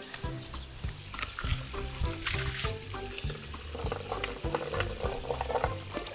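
Background music with a steady beat, over water running from an outdoor tap and splashing into a plastic basin.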